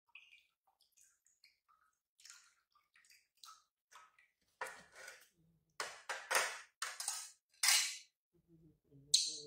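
A plate and small plastic cup being handled on the floor, with a coconut set onto the plate: a run of short scrapes and clatters that get louder about halfway through. The loudest comes just before the end.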